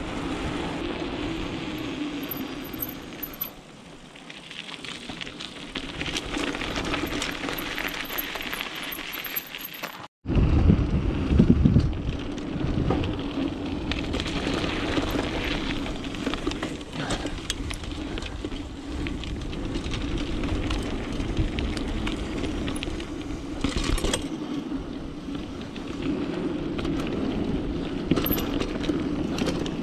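Mountain bike riding noise: tyres rolling with rushing air, and the chain and bike parts rattling and clicking over bumps. A brief dropout about ten seconds in, after which the tyres rumble louder on dirt trail.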